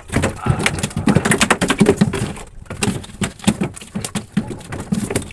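Rapid, irregular clicking and knocking, several strokes a second, with dull thuds among them.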